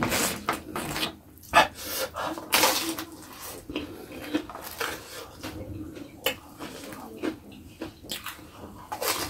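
A person chewing sambal-dipped fried tofu with wet smacking and clicking mouth sounds, the loudest smacks about a second and a half and two and a half seconds in.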